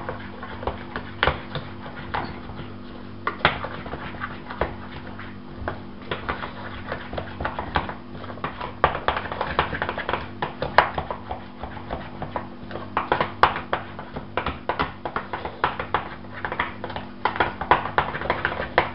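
A spatula beating thick choux paste in a stainless-steel saucepan, with irregular knocks and scrapes against the pot, coming thicker and faster in the second half. This is the flour being worked into the melted butter and water until the dough forms a ball. A steady low hum runs underneath.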